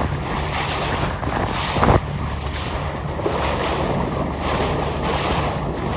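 Wind buffeting the microphone over choppy water splashing past a boat's hull, with one sharp knock just before two seconds in.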